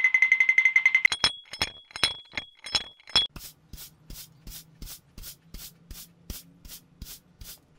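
Dubbed-in cartoon sound effects. A brief buzzing whir comes first, then a few sharp clicks with a thin ringing tone, then a steady run of rasping, sanding-like scrubbing strokes at about four a second.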